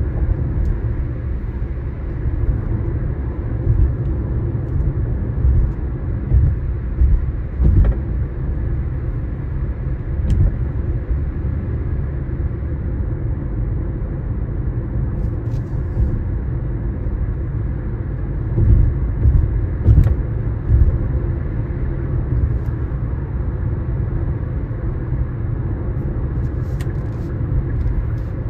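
Car driving at road speed: a steady low rumble of engine and tyre noise that swells a few times, with a few faint ticks and knocks.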